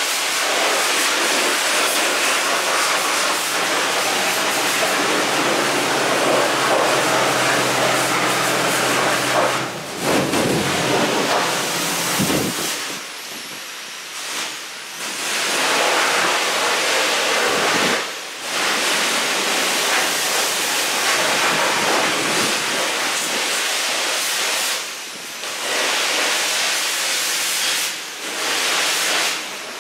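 High-pressure car wash spray wand blasting grime off a Scag Tiger Cub zero-turn mower's engine, a loud steady hiss that breaks off briefly several times. A low steady hum runs under it for the first ten seconds or so.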